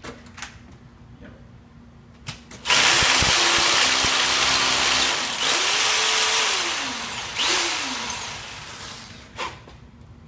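Electric drill boring into a concrete basement wall along a hairline crack for the epoxy injection ports, run in three bursts starting about three seconds in, the motor speeding up and slowing down between them. A few sharp clicks come before and after the drilling.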